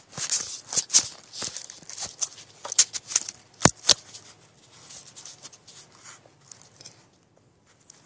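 Close handling noise on a phone's microphone: irregular scratchy rustling and clicks as the covered phone rubs against fingers or clothing, with a sharp knock about three and a half seconds in. It thins to faint scattered rustles over the last few seconds.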